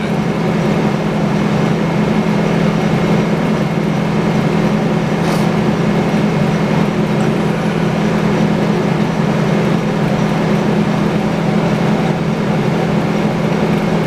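Sawmill engine running at a steady, unchanging speed with an even hum, the saw spinning free between cuts rather than under load. A single faint click about five seconds in.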